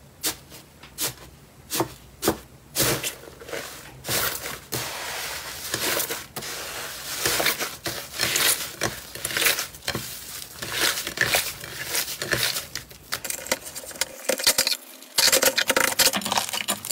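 Crumbly 'tofu dregs' slime being pressed and squished by hand: separate sharp crackling pops at first, then dense, continuous crackling as it breaks apart under the fingers, loudest near the end.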